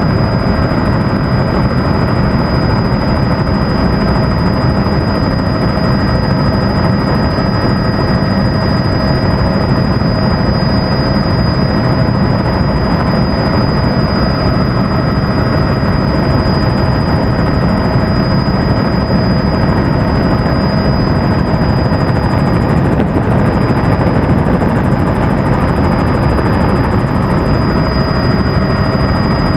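Helicopter in flight heard from on board: a steady, loud drone of rotor and engine noise with a thin, steady high-pitched whine over it, unchanging throughout.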